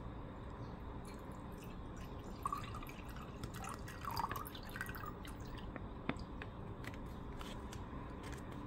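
Liquid herbal medicine poured from a plastic pouch into a ceramic mug: a thin stream splashing and gurgling into the liquid for a couple of seconds in the middle, followed by a light click about six seconds in.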